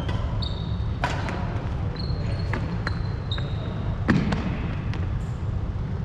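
Badminton rally: sharp clicks of rackets striking the shuttlecock every second or so, with high squeaks of court shoes on the hardwood floor between hits and a heavier thud about four seconds in. A steady low rumble runs underneath.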